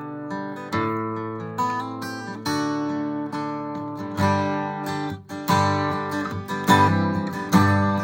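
Acoustic guitar strumming chords in an instrumental break, one strum about every second, the chords ringing out between strokes. From about halfway through the strumming grows fuller and louder.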